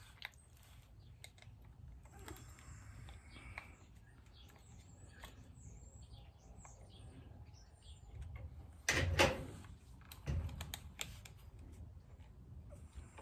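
Small clicks and metal clatter of a chainsaw's bar and chain being worked on by hand while the chain tension is adjusted, with a louder knock about nine seconds in and another a second or so later. Birds chirp faintly in the background.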